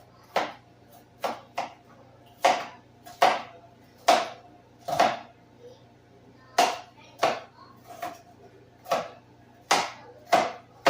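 Knife chopping vegetables on a cutting board: about fifteen sharp knocks at an uneven pace, one to two a second, with a short pause about halfway through.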